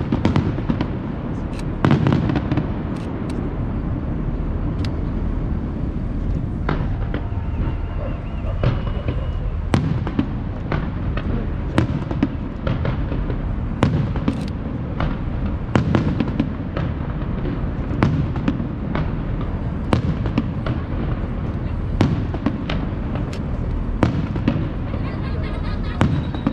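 Aerial fireworks display: shells bursting with sharp bangs at irregular intervals, every second or two and sometimes in quick clusters, over a steady low rumble.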